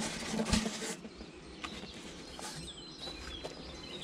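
A knock and about a second of rustling as a beehive is handled and closed up, followed by faint birds chirping.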